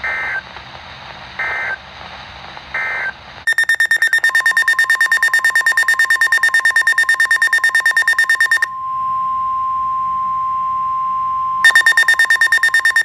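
Emergency alert tones. First come three short digital data bursts, the end-of-message code of the last warning. Then a loud electronic alarm beeps rapidly, about six times a second, over the steady 1050 Hz weather radio warning tone, which sounds alone for about three seconds before the rapid beeping starts again near the end.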